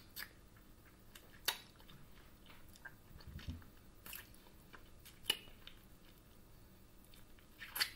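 Faint chewing and biting on a spicy air-fried chicken wing, with a few short, sharp mouth smacks and clicks scattered through.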